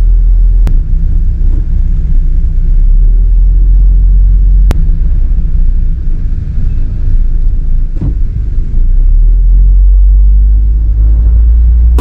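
Van being driven, a steady low rumble of road and engine noise inside the cab, with three brief sharp clicks along the way.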